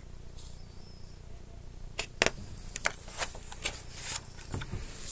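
Paper picture-book pages being flipped and handled: a run of short, sharp papery snaps and clicks starting about two seconds in, over a faint low hum.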